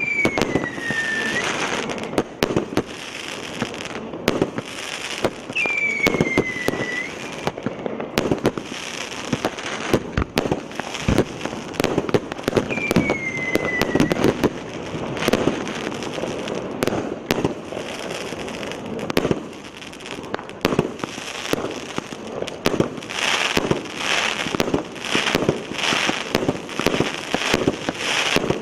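A consumer fireworks battery (cake) firing shot after shot: dense bangs and crackling throughout, with three whistles falling in pitch in the first half. Near the end the shots come evenly, about two a second.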